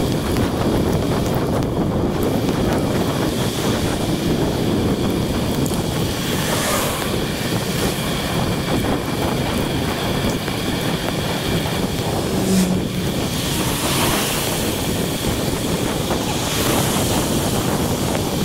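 Steady wind buffeting the microphone of a bike-mounted camera, over road and traffic noise on a wet street, with a few brief swells as the ride goes on.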